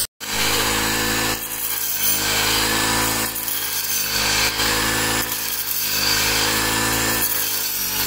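Small petrol engine of a hand-held wheat harvesting machine running at high speed. Its pitch dips briefly and recovers every second or so as it takes load cutting the crop.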